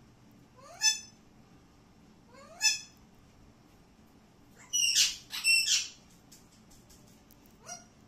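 Alexandrine parakeets calling: two short rising calls, then two loud, harsh screeches about five seconds in, and one short, fainter rising call near the end.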